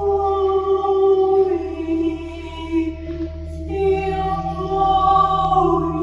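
A woman's voice singing long, wordless held notes in light-language toning, in two phrases with a short break between them, over a steady drone.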